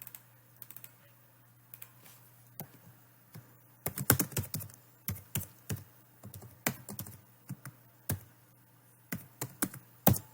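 Typing on a computer keyboard: irregular quick keystroke clicks, densest near the middle, over a faint steady hum.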